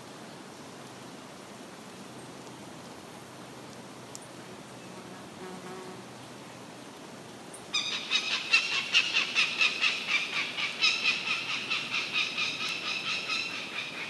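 A goshawk parent giving its loud, rapid kek-kek-kek alarm call, a run of harsh notes at about five a second. It starts about halfway through and goes on to the end, the call of an adult defending its nest. Before it there is only quiet background.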